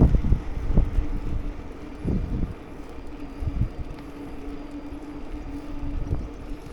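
Wind buffeting the microphone in irregular low gusts over a steady hum from a motor scooter riding along.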